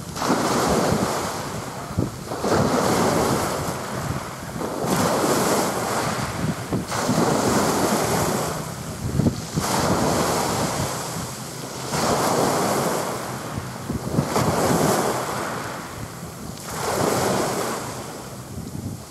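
Small waves washing in at the water's edge, surging and fading about every two and a half seconds, with wind rumbling on the microphone.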